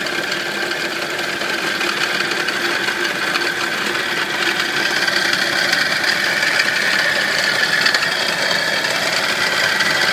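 Nissan 240SX engine running with a steady, fast metallic rattle, getting a little louder about halfway through. The owner does not know what is causing the rattle.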